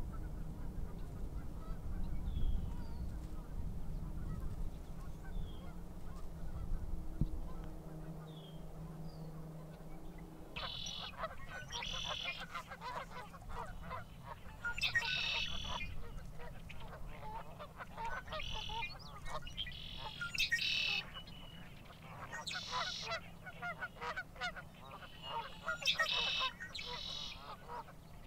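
A low rumble with a few faint high bird chirps, then from about ten seconds in a busy chorus of wetland birds: harsh, rasping calls repeated every second or two over a dense crackle of clicks.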